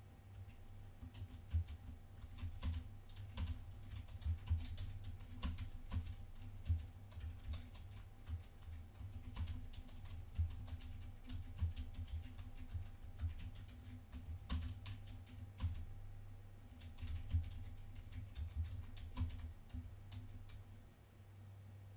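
Typing on a computer keyboard, irregular key clicks over a steady low electrical hum, as text is entered.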